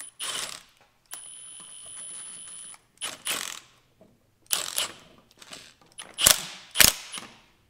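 Cordless impact wrench driving the screw of a strut spring compressor on a C8 Corvette front coil spring and shock, in about five short loud bursts, with a quieter steady run between about one and three seconds in.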